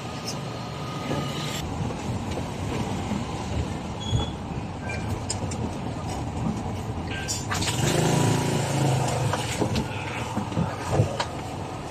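Vehicle engine and road noise heard from inside the cab as it drives slowly, with a louder engine note about eight seconds in and a few scattered clicks and rattles.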